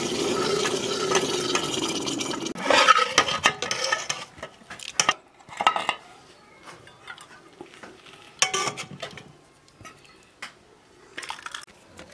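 Hot mustard-oil tadka sizzling loudly in dal under an aluminium lid, the hiss dying away after about two and a half seconds. Then a metal ladle stirs the dal, knocking and clinking against the aluminium pot at intervals.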